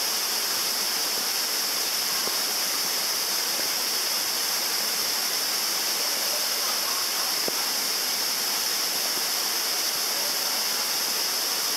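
Steady rushing of a small mountain-stream cascade pouring over rock into a gorge pool: a constant, unbroken bright hiss of falling water.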